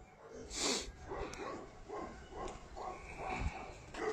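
A dog making a run of short vocal sounds, about two a second, after a brief noisy burst about half a second in.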